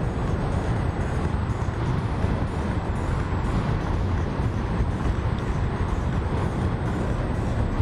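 Steady road and engine noise of a moving vehicle: an even low drone with hiss above it, with no change in pace.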